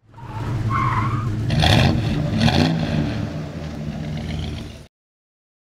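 Title-sequence sound effect of a car engine revving with tyres skidding, with two sharp bursts about two and two and a half seconds in. It cuts off suddenly near the end.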